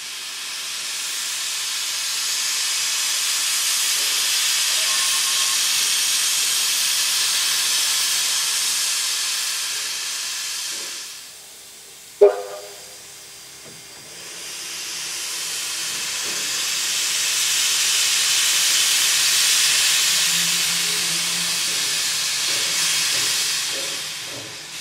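Steam locomotive 3265, a NSW C32-class 4-6-0, venting steam in a loud hiss that lasts about eleven seconds, dies away, then builds again for about ten seconds. A single sharp metallic clank rings out in the gap between.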